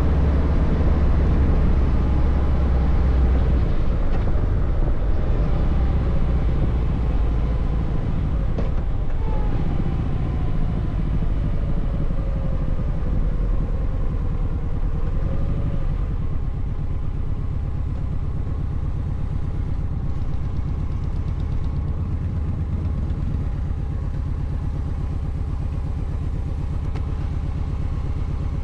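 Kawasaki Voyager 1700's V-twin engine running at steady road speed with wind noise rushing over the microphone. A higher tone slides down in pitch about ten seconds in.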